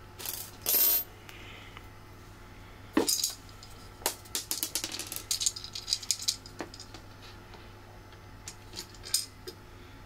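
Small metal screws and square nuts clicking and rattling as they are handled, with a sharper knock about three seconds in and a run of light clicks after it.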